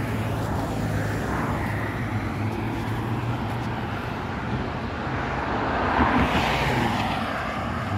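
Road traffic noise: a steady low hum, with a vehicle passing that swells up and fades away about six seconds in.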